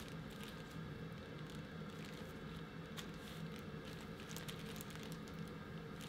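Faint crinkling of plastic wrap and soft squishing as hands press and flatten sticky glutinous rice dough on it, with scattered small crackles.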